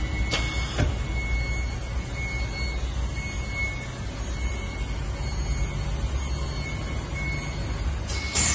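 Wire-rack welding production line machinery running with a steady low hum and a thin steady whine. Two sharp clicks come just after the start, and a short hiss comes near the end.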